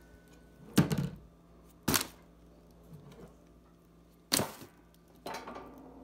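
Bottles dropped one at a time into a kitchen trash can, landing on the rubbish inside with four sharp thuds and clatters spaced one to two seconds apart.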